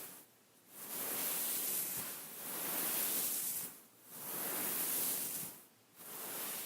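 Fingers brushing or scratching across a beaded pillow, making a hissing rustle in four long strokes with short pauses between them.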